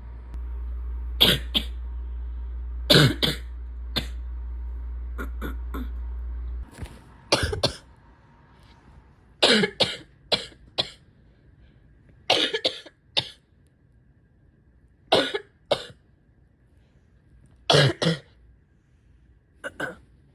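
A person coughing in repeated short fits of two to four coughs, a fit every two to three seconds: a chesty cough from a respiratory illness on top of asthma and chronic bronchitis. A steady low hum runs underneath and cuts off abruptly about seven seconds in.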